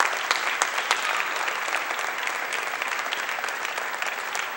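Crowd applauding steadily in a large arena, a dense patter with single sharp claps standing out.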